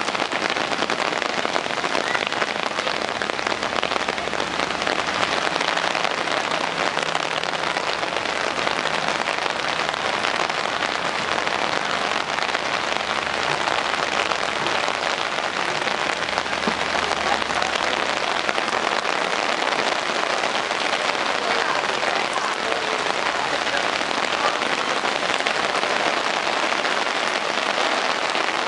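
Heavy rain falling steadily on wet pavement and road: a dense, even hiss of drops with no letup.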